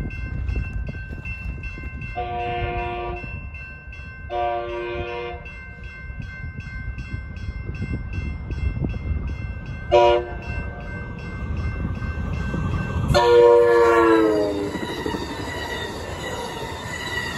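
Railroad crossing bell dinging steadily while an Amtrak San Joaquin passenger train blows its horn in the standard grade-crossing pattern: two long blasts, a short one, then a final long blast that drops in pitch as the locomotive passes. After that, the train's cars rush through the crossing.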